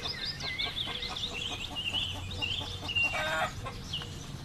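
Birds chirping throughout, with a chicken clucking once, loudest about three seconds in.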